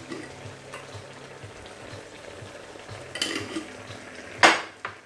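Risotto simmering with a steady low sizzle in a wide steel pan. A few light knocks come a little past three seconds in, and a single sharp knock, the loudest sound, at about four and a half seconds.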